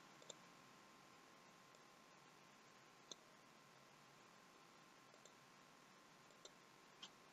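Near silence with a few faint, sparse computer mouse clicks.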